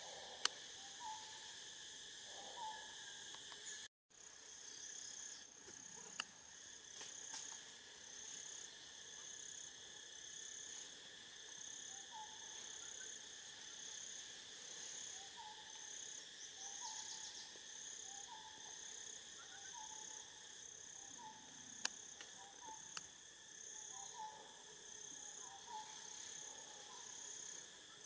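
Faint tropical forest ambience: a steady insect chorus pulsing regularly, high-pitched, while a bird repeats short call notes every second or so. There are a few sharp clicks, and the sound drops out briefly about four seconds in.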